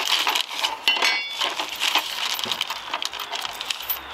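Small metal parts clinking and rattling as they are handled: an irregular run of light, sharp clicks and clinks.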